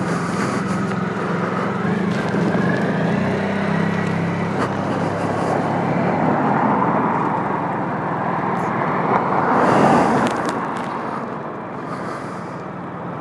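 Suzuki Burgman 650 maxi-scooter running, with road and wind noise. A steady low engine hum fades after about five seconds while a rushing noise swells, peaks about ten seconds in, then eases.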